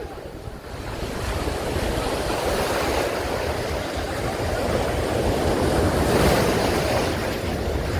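Sea surf breaking and washing around in the shallows, an even rushing wash that swells louder after the first second.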